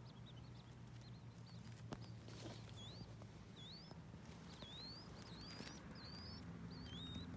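Baby birds peeping: many short, high, rising cheeps, a few a second, over a low steady hum, with a few soft clicks or rustles.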